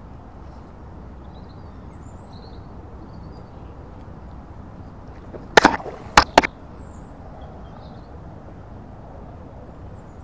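Steady outdoor background hiss with faint high chirps, broken about halfway through by a quick cluster of three or four sharp knocks.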